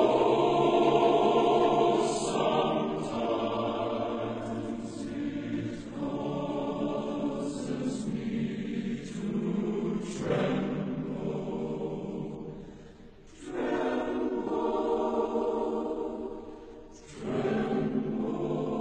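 Choir singing slow, held chords with music, fading down briefly twice in the second half before swelling back.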